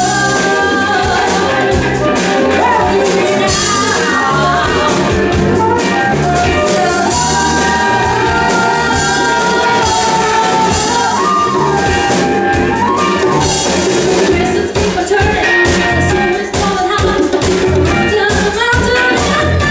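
Live Latin-funk band playing with a steady beat: congas and drum kit, electric guitar and bass, with a flute and a woman singing.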